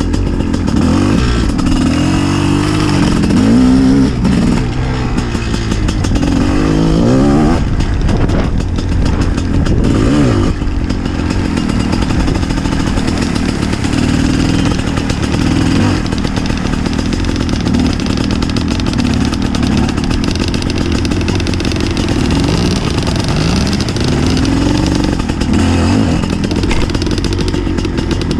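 Two-stroke Gas Gas enduro motorcycle ridden off-road, its engine revving up and falling back over and over as the rider works the throttle and gears. About halfway, the wheels splash through standing water.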